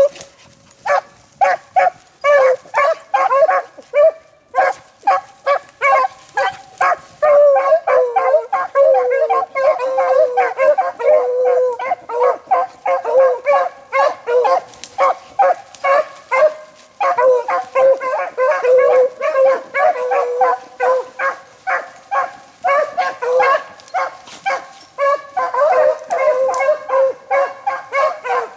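Beagles baying in rapid, overlapping barks and bawls, giving tongue as they trail a rabbit, with brief lulls a few seconds in and around the middle.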